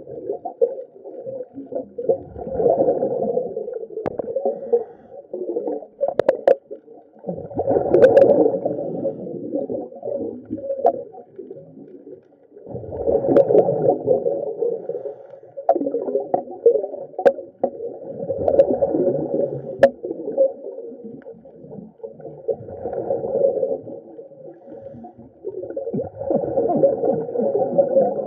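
Muffled underwater noise picked up by a submerged camera: low water surging and gurgling that swells and fades every few seconds, with a few sharp clicks.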